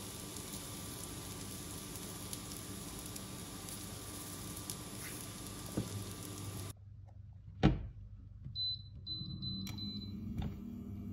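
Zucchini sizzling in a frying pan with a steady hiss. About two-thirds in the sizzling stops; a single sharp knock follows, then a quick run of short high beeps from the induction cooktop's touch controls.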